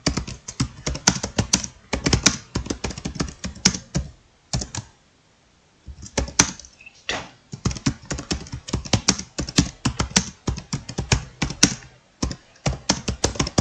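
Fast typing on a laptop keyboard: a quick, irregular run of keystroke clicks that stops for about a second and a half some four seconds in, then picks up again.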